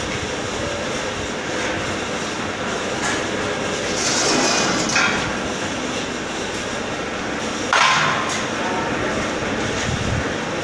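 Double cone blender running, its stainless-steel cone tumbling on its drive with a steady mechanical rumble and rattle. Louder clanks come about five seconds in and again near eight seconds.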